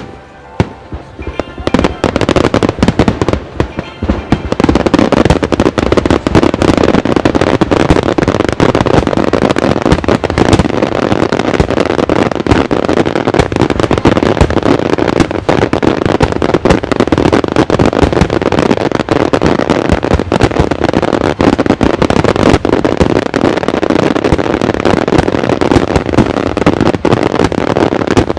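Starmine of aerial fireworks fired in rapid succession: a few separate bangs, then from about two seconds in a dense, unbroken barrage of bursts and crackles.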